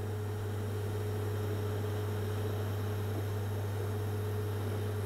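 EWM Tetrix microplasma welding arc burning steadily on thin sheet: an even low hum with a fainter higher tone over a soft hiss, unchanging throughout.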